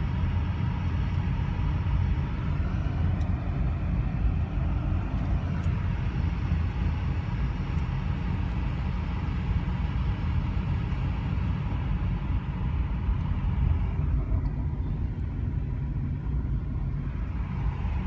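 Steady low rumble of a car driving, with engine and tyre noise on the road, heard from inside the cabin. The higher road hiss eases for a few seconds near the end.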